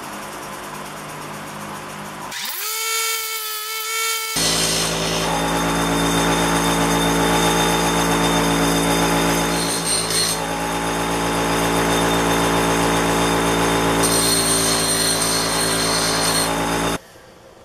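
Small bench grinder running with a steady motor hum. From about four seconds in it turns to a louder, sustained grinding as a steel file is pressed against the spinning wheel. The sound cuts off abruptly near the end.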